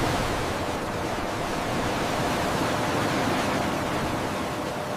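Ocean surf and wind: a steady rushing noise that cuts in suddenly and swells a little.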